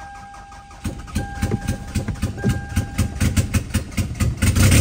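Toyota Camry 2.2 L inline-four being cranked by the starter, an even rhythmic chug of about four to five strokes a second that grows louder towards the end. A dashboard warning chime sounds in short on-off tones over the first three seconds.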